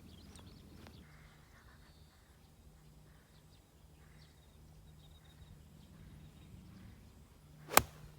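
A single sharp crack of a golf club striking the ball near the end, over faint bird chirps and a low steady hum.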